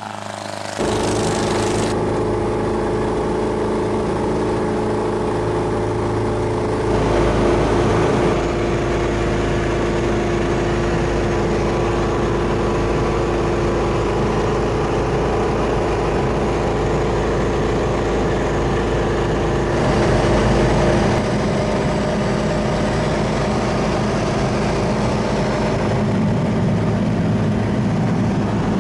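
The Briggs & Stratton Vanguard 23 hp V-twin engine of an MC30 Luciole ultralight, converted for aircraft use, running steadily and driving the propeller. Its sound changes abruptly several times, briefly dropping lower about a second in.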